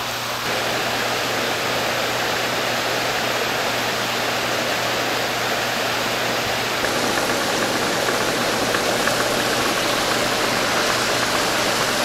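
Paddlewheel aerators churning a shrimp pond: a steady rush of splashing water with a low, even hum of the belt-driven drive underneath. The sound swells up to full right at the start as the aerators are switched on, then holds steady.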